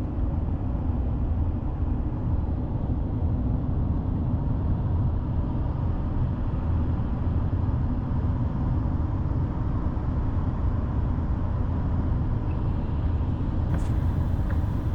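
Steady road and engine drone heard inside a moving truck's cab, a deep even rumble with no change in pace. A brief sharp click near the end.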